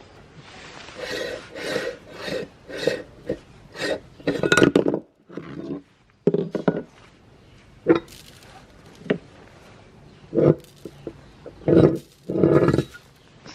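Meat grinder crunching and cracking hard items in a series of short irregular bursts, quick and close together for the first few seconds, then more spread out.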